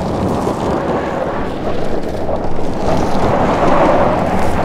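Quad-motor Rivian R1T electric pickup drifting on loose dirt: its tyres spin and slide, giving a loud, steady rush of noise with no engine note, growing louder about three seconds in.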